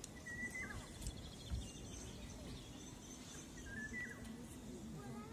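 Quiet outdoor ambience with faint bird calls: two short whistles, about half a second in and about four seconds in, each dropping in pitch at the end. A low steady background hum runs throughout, with a dull thump about a second and a half in.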